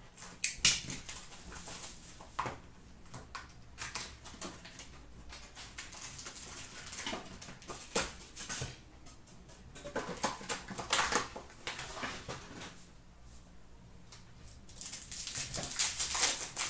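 Hands opening a cardboard hockey-card hobby box and a foil card pack: a run of short scratchy rustles and cardboard scrapes, with denser crinkling of the wrapper being torn near the end.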